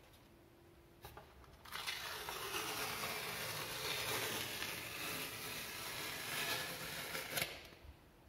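Paper masking tape being peeled off in one long pull, a steady ripping rasp that starts about two seconds in and stops sharply near the end.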